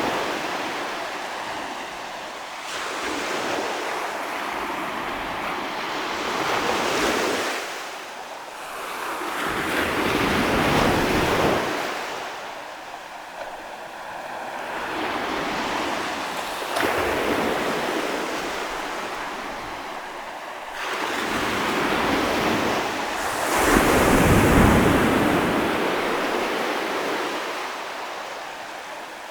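Ocean waves breaking on the shore, one wash after another every few seconds, each swelling up and fading away, the loudest a little past two-thirds of the way through.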